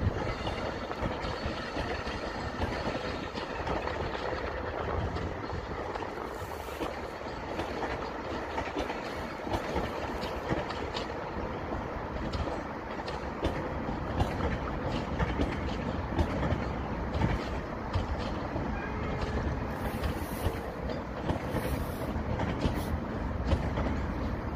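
South Western Railway electric multiple unit running slowly past on the main line, a steady rolling noise with many short clicks from the wheels on the track.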